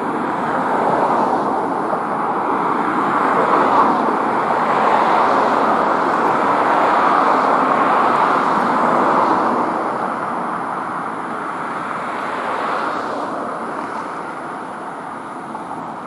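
A vehicle running: a steady rushing rumble that builds over the first several seconds and then slowly eases off.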